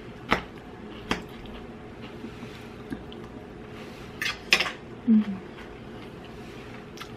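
Metal fork clinking and scraping against a plate, in several separate sharp clicks with a small cluster about four and a half seconds in. A brief low voice sound follows about five seconds in.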